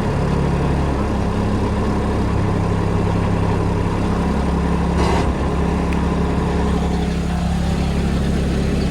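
Kubota RTV 900 utility vehicle's three-cylinder diesel engine running steadily, with a brief clatter about five seconds in.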